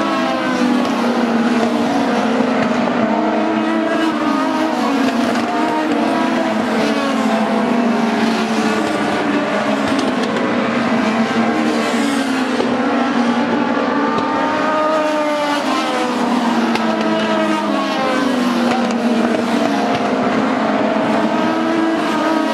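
Several Legends race cars with Yamaha four-cylinder motorcycle engines running laps together. Their overlapping engine notes rise and fall repeatedly as the cars lift and accelerate around the track.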